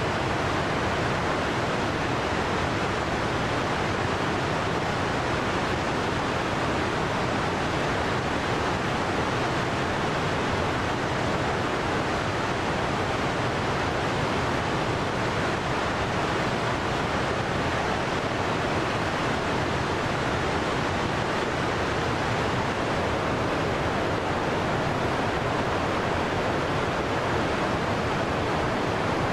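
Fast mountain river rushing over rocks: a steady, unbroken whitewater noise.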